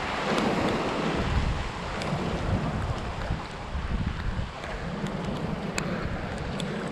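Wind buffeting the microphone in a low rumble, over waves breaking and washing against the jetty's rocks.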